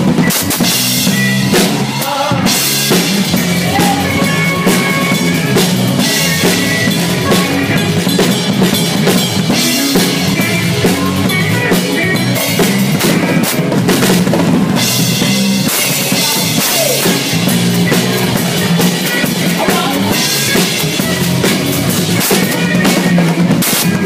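Drum kit played loudly and heard up close: bass drum, snare and cymbals driving a continuous beat.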